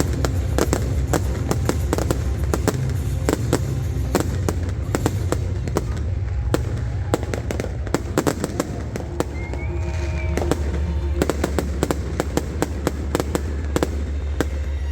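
New Year's fireworks going off: a dense run of rapid bangs and crackles over a steady low rumble, with a short whistle about ten seconds in.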